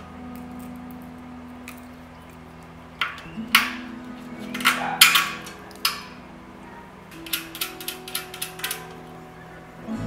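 Metal tools and bicycle parts clinking and knocking during assembly, several sharp knocks in the middle and a quick run of about eight light ticks near the end, over soft background music.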